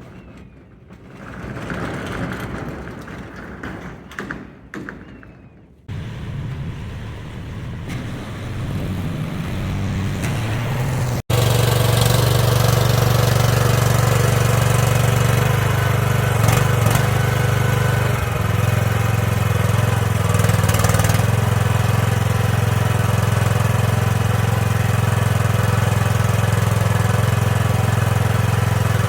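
Engine of an AGT MX12R 1-ton mini excavator. It sounds uneven and changing at first, with abrupt cuts, then runs as a steady, even drone for the last two thirds.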